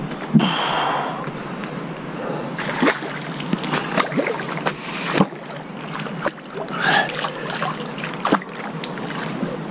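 A small hooked river carp splashing and swirling at the water's surface close against the bank as it is played in, heard as an irregular run of splashes and knocks.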